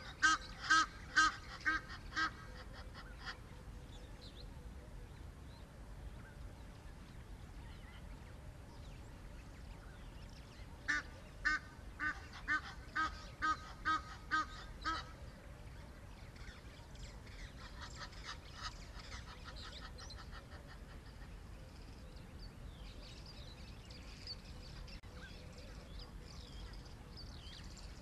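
A bird calling in two runs of rapid honking notes, about two to three a second. One run is at the start and another begins about 11 s in and lasts some four seconds. Faint high chirps follow later.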